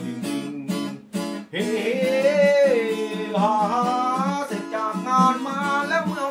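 Acoustic guitar strummed in a steady rhythm, with a short break about a second in. Then a man starts singing, holding long notes that slide up and down over the strumming.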